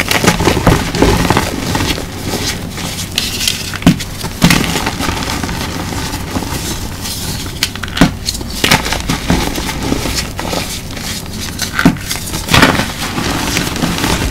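Hands crushing and squeezing blocks of reformed gym chalk in a bowl of loose chalk powder. Sharp crunches come at irregular moments, over a steady gritty crumbling and powdery rubbing.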